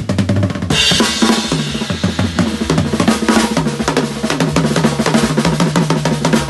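Drum kit played in fast, dense strokes on bass drum and snare. A cymbal crash about a second in rings on under the hits.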